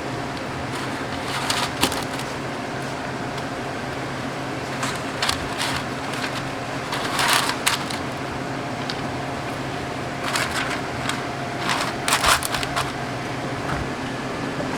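Food-preparation noises in a small shop kitchen: irregular rustling, crinkling and scraping sounds, the loudest around the middle and near the end, over a steady hum of kitchen appliances.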